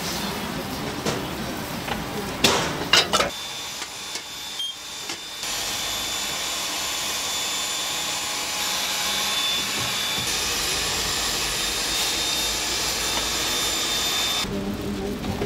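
Steady hiss of gas burners heating cast-iron bungeoppang (fish-shaped bread) molds, with a few sharp knocks about two and a half to three seconds in.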